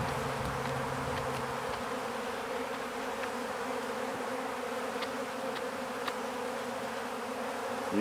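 Honey bees buzzing steadily around an opened hive, one close by for the first couple of seconds. The colony is dead and these are robber bees from other hives taking the leftover honey.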